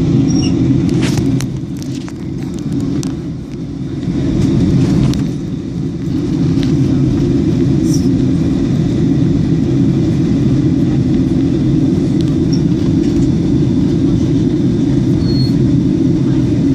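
Airliner cabin noise in flight: the steady, loud, low rumble of a Boeing 737's jet engines and the airflow past the fuselage, heard from a window seat. A few light clicks sound in the first seconds.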